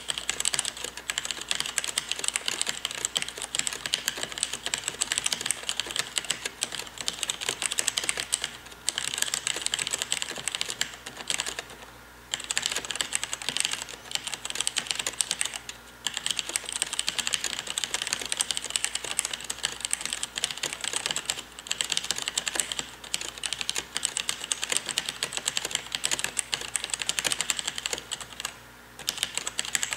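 Fast touch-typing on a compact mechanical keyboard with Cherry MX Red linear switches and PBT keycaps: a dense, rapid run of key clacks with the keys often bottoming out, broken by a few brief pauses.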